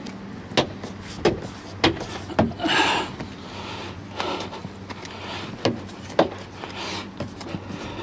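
Plastic door trim panel of a Toyota RAV4 being pressed onto the door: a series of sharp clicks and knocks as its retaining clips snap in, with a brief scraping rustle about three seconds in.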